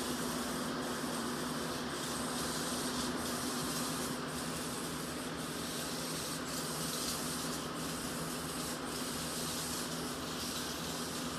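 Steady hiss with a low, even hum underneath.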